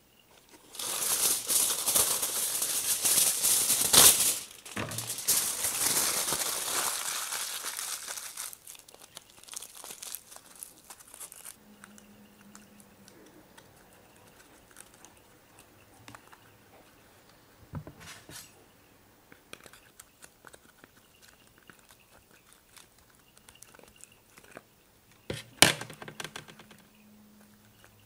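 Aluminium foil pulled off its roll and crinkling loudly for several seconds, with a sharp rip about four seconds in as it is torn off. After that come quieter, scattered crinkles as the foil is pressed around a small piece of wood by hand, and one sharp click near the end.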